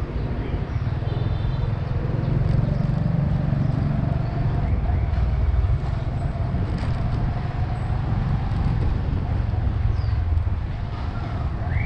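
Wind buffeting the microphone and road noise from a moving motorbike in city traffic, with a faint steady engine tone underneath.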